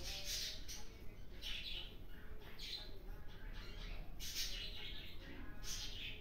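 Birds chirping faintly in the background: repeated short calls, about one or two a second.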